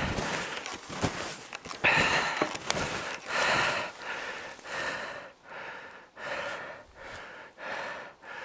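A man breathing hard, a quick even run of breaths about one and a half a second, one louder breath about two seconds in.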